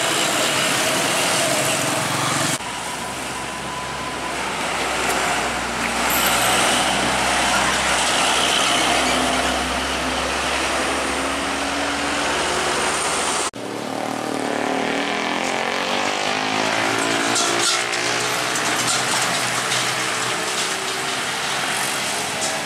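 Heavily loaded three-axle diesel trucks climbing a steep uphill bend, their engines labouring under load with some rising engine notes, mixed with passing motorcycles and other traffic. The sound changes abruptly twice, from one passing truck to the next.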